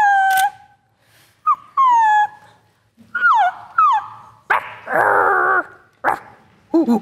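Puppies whimpering and yipping: a string of short, high whines that each drop in pitch, with a longer, rougher cry about halfway through.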